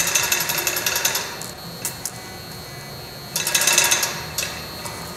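Manual chain hoist clicking fast as its hand chain is pulled, hoisting the top half of a jet engine's compressor case. There are two runs of rapid clicks, one in the first second and another about three and a half seconds in, with a few lone clicks between.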